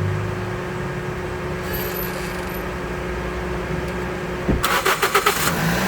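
Toyota Vios gasoline engine being cranked by the starter. It catches about four and a half seconds in with a quick run of firing knocks, then runs up, starting at last once the failed fuel hose feeding the common rail and injectors has been patched.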